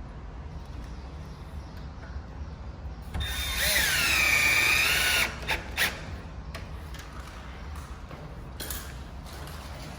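Cordless drill running for about two seconds to drive a screw, a few seconds in, its whine dropping in pitch as it loads and then recovering. A couple of sharp clicks follow.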